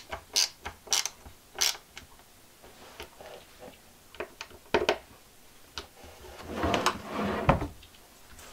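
Ratcheting screwdriver clicking in short strokes as a cabinet handle screw is turned in by hand, a few clicks about half a second apart. Then scattered small clicks and knocks, and near the end a longer rustle ending in a thump.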